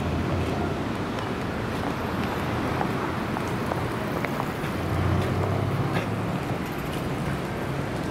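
Street ambience with road traffic: a steady wash of vehicle noise, with a low engine rumble that swells as a vehicle passes about five seconds in.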